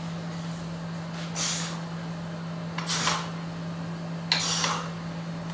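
A person's sharp breaths out, three of them, about every one and a half seconds in time with heavy dumbbell curl reps, over a steady low hum.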